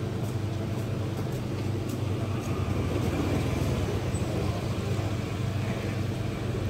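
Steady low rumble of street traffic with a constant hum, unchanging throughout.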